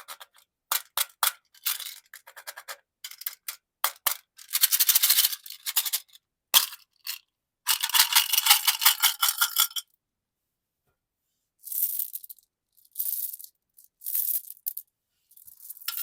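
Candy and its plastic packaging being handled: bursts of quick rattling and clicking, like small hard pieces shaken in plastic, coming and going with short silences and a longer pause about two thirds of the way through.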